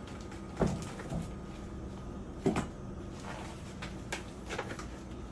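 Four separate dull knocks, spaced one to two seconds apart, as turkey meat is put into a mixing bowl and its container is handled.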